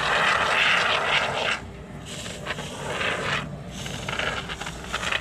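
Aerosol can of expanding polyurethane foam spraying through its straw applicator into a hole in a wooden wall: three hissing bursts, the first and longest about a second and a half, the last fainter.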